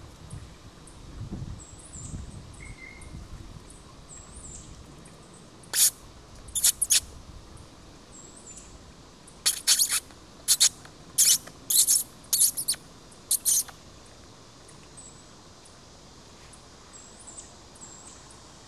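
A mink crunching hard dry food. A few sharp crunches come about six seconds in, then a quick run of about a dozen crunches over some four seconds. Faint high bird chirps come and go in the background.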